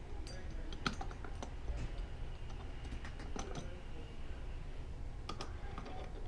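Scattered light clicks and taps of small metal parts as body screws and washers are fitted and hand-tightened into a BelGAS P300 gas pressure regulator, with a nut driver set on a screw near the end.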